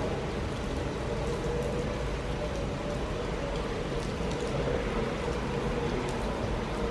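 NS Koploper (ICM) electric multiple unit pulling away into the distance, its running hum fading to faint over a steady hiss of light rain.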